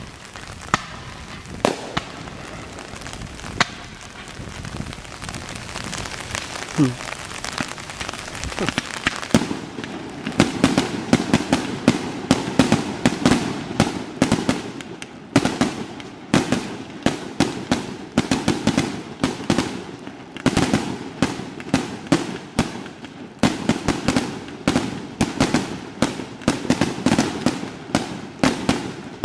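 Aerial fireworks being set off: a few scattered sharp bangs, then, about nine seconds in, a rapid barrage of bangs and crackles, several a second, that keeps going.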